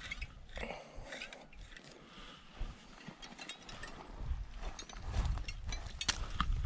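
Fishing reel clicking in a run of irregular ratchet-like clicks as the line is worked against a fish snagged in a mat of water primrose.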